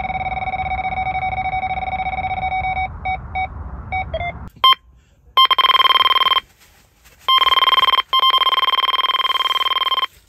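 Electronic carp bite alarms sounding a continuous tone as a fish runs and takes line. A lower-pitched alarm stutters and stops about four seconds in, then, after a short gap, a higher-pitched alarm sounds in long unbroken stretches with brief breaks.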